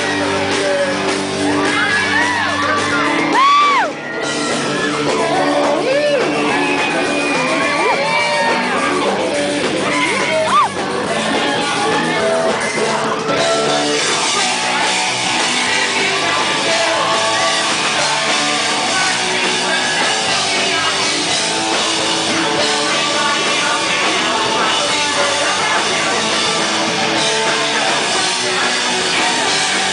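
A rock band playing live, with shouted and sung vocals over dense, loud music.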